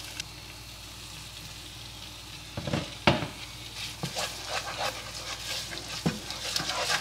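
Tomato puree and chopped onions sizzling in a non-stick frying pan. About two and a half seconds in, a wooden spoon knocks twice against the pan, then stirs with quick repeated scraping strokes.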